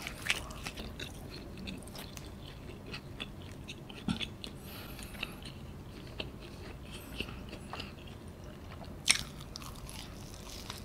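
Close-miked mouth sounds of a person biting and chewing a piece of cheese-filled pizza crust: soft crunches and small clicks, with a few sharper crunches, the loudest about nine seconds in.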